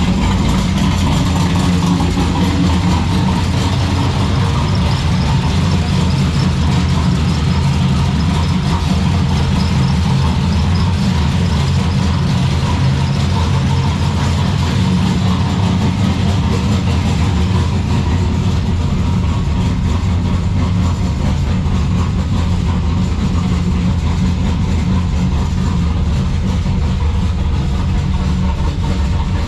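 Turbocharged 3.8-litre Holden Ecotec V6 idling steadily through a partly dumped exhaust; the character of the idle comes from its camshaft, with the static idle timing set to 20 degrees.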